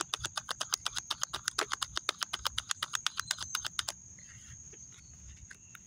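A tarot card deck being shuffled by hand: a quick, even run of card clicks, about nine a second, that stops about four seconds in.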